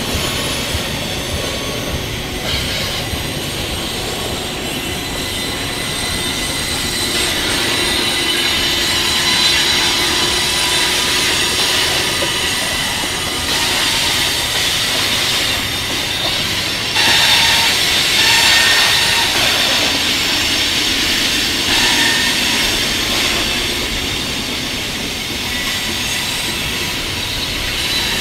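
Canadian Pacific freight train of hopper cars rolling through a sharp curve, its steel wheels squealing against the rails with several high, steady squealing tones over the rumble of the cars. The squeal grows louder partway through.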